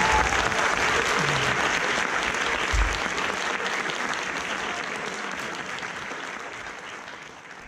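Audience applauding at the end of a dance number, the clapping slowly fading out, with a single low thud about three seconds in.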